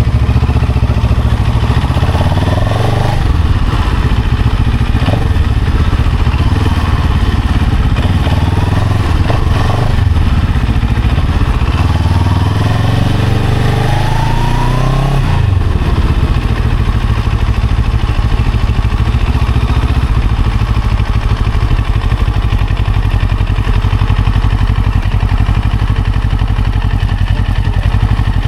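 Motorcycle engine running, its pitch rising and falling with several bursts of throttle. The longest rise climbs for a few seconds and drops abruptly about fifteen seconds in, after which the engine runs at a steady low note.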